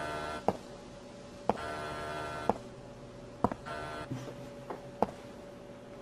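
An electronic buzzing tone that sounds for about a second, pauses for about a second and comes back, with a sharp click roughly once a second.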